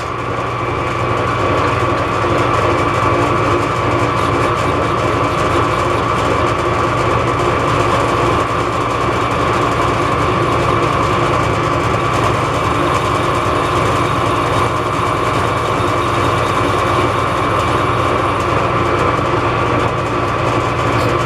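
Metal lathe running at a steady speed, with a constant whine.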